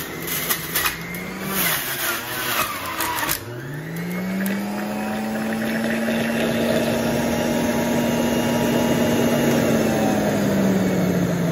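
Centrifugal juicer motor running, with crunching and crackling as apple, ginger and grapes are pushed down the chute for the first three seconds or so. The motor note then drops and climbs back up to a steady high whine, sinking slightly near the end.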